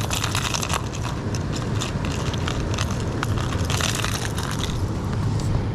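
Close rustling and clicking of fishing tackle being rummaged through, a continuous crackle of small knocks, over a steady low rumble.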